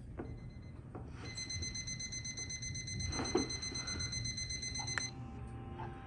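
Alarm clock sounding a high, steady electronic tone that starts about a second in and cuts off suddenly about five seconds in, heard through laptop speakers.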